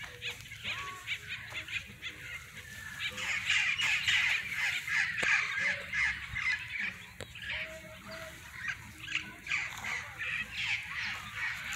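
A flock of birds in the treetops calling at once, in dense, overlapping short calls that grow louder a few seconds in.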